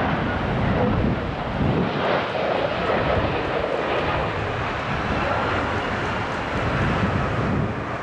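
Boeing 767-300 freighter's twin turbofan engines on landing approach: a steady jet rumble with a faint whine that slides slowly down in pitch as the airliner passes.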